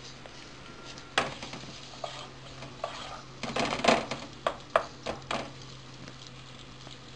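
A wooden spatula stirs chopped onions frying in oil in a frying pan, giving a run of scrapes and knocks against the pan from about a second in until just past the middle, over a faint sizzle. The onions are being sautéed until soft.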